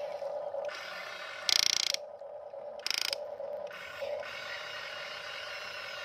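Huina remote-control excavator's small electric motors and plastic-and-metal gearboxes whirring as the boom and bucket move, over a steady motor hum. Two louder bursts of gear noise come about a second and a half in and about three seconds in.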